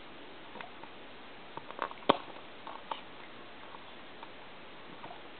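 Small clicks and taps from a telephone circuit board and its attached wires being handled, with the sharpest click about two seconds in, over faint hiss.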